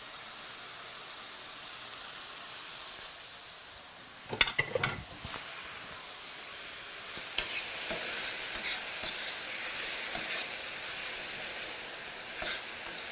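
Salmon and mushrooms sizzling in frying pans on a gas hob. About four and a half seconds in comes a brief clatter of knocks. From about seven seconds the sizzling is louder, with the clicks and scrapes of a utensil stirring the mushrooms as they brown in the pan.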